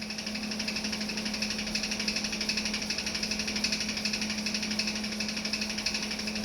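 Steady workshop background: an electric fan running with a rapid, even clicking, over the constant hum of an arc welder left switched on.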